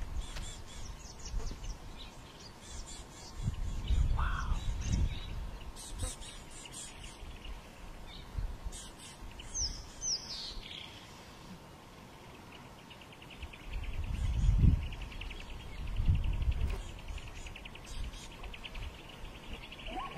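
Wild birds chirping and calling, with a couple of quick falling whistles about ten seconds in. A fast, steady buzzing trill sets in about halfway and carries on. Bouts of low rumble come and go underneath.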